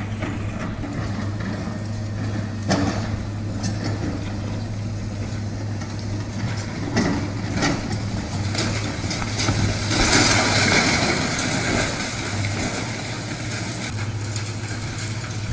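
Heavy construction machine's diesel engine running steadily, with a few sharp knocks and a loud hiss about ten seconds in.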